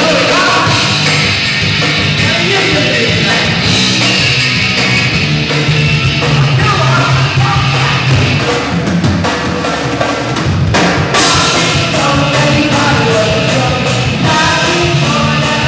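Live punk rock band playing loud: electric guitar, bass guitar and drum kit, with a sung lead vocal.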